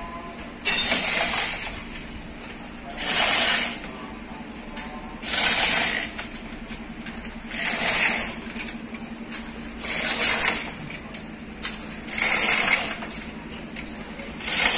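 Manual chain hoist being hauled by hand while it holds a truck engine being lowered into place: the chain rattles and clinks through the block in repeated strokes, about one every two seconds, each under a second long. A steady low hum runs underneath.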